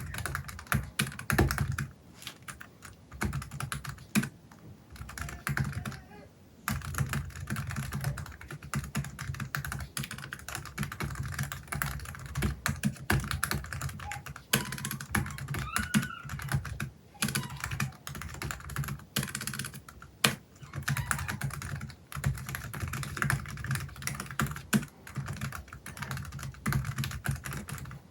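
Typing on a Logitech MX Keys Mini low-profile scissor-switch keyboard fitted with a silicone keyboard skin: long runs of rapid key taps broken by a few short pauses.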